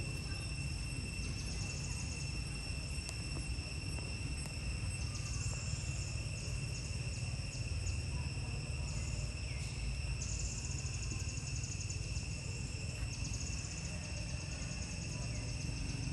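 Insects droning in steady high tones, with a rapid pulsing buzz that starts and stops several times. A constant low rumble runs underneath.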